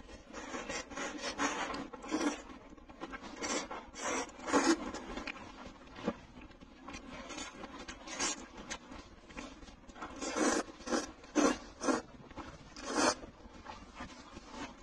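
Close-miked eating sounds: a person chewing and slurping braised glass noodles, a run of short irregular mouth noises with a few louder ones about two thirds of the way through.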